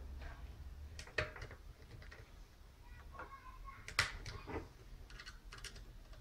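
Small clicks and taps of plastic and metal as a clothes iron's handle cover and cord strain relief are fitted back and a screwdriver is worked into the handle, with the sharpest click about four seconds in.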